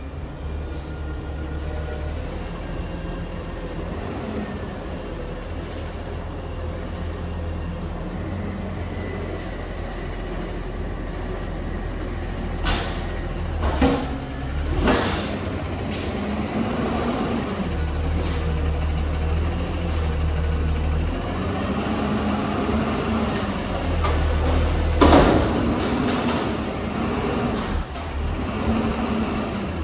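Peterbilt front-loader garbage truck's diesel-type engine running, with a few short, sharp air hisses as it creeps forward. In the second half the engine revs up and down as the hydraulic forks lift the dumpster over the cab.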